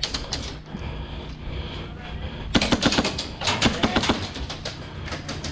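Airsoft guns firing in rapid automatic bursts: a few quick shots right at the start, then a longer, louder burst of fast snapping clicks for about a second and a half midway.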